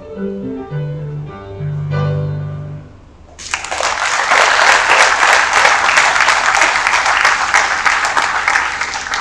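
Instrumental music with guitar-like plucked notes, ending about three seconds in, then loud applause from an audience of many people clapping.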